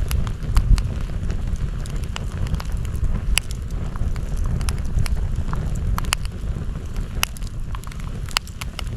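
Campfire burning, with irregular sharp crackles and pops of burning wood over a steady low rumble.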